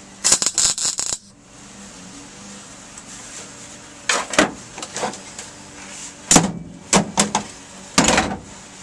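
Short, sharp metallic bursts and knocks from a sheet-steel patch panel being handled and fitted against the body panels: a quick crackling cluster about a second long at the start, then single sharp strokes spaced over the next few seconds.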